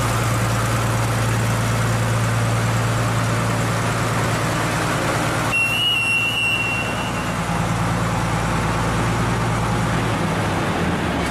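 Underground mining diesel locomotive's engine running steadily as the loco moves along the track. Just past halfway a high-pitched steady beep sounds once for about a second and a half.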